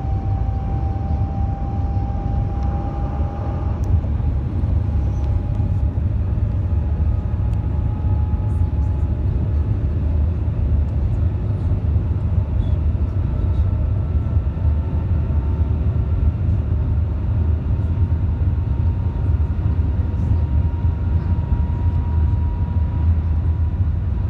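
Cabin noise inside the Shanghai Maglev train as it accelerates: a steady low rumble with a faint whine that slowly rises in pitch.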